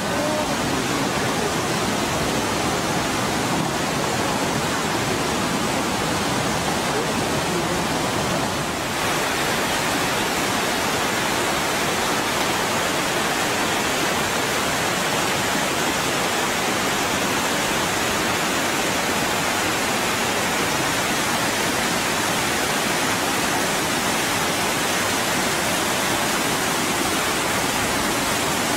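Floodwater torrent rushing steadily, a dense, unbroken rush of fast-moving muddy water. It shifts slightly in tone with a brief dip about nine seconds in.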